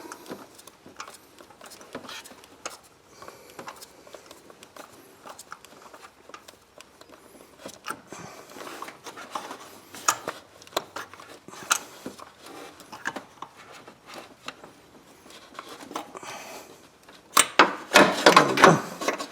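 Hand tools and parts being handled during spark plug work: scattered light clicks and knocks, with a louder stretch of rattling and crackling near the end.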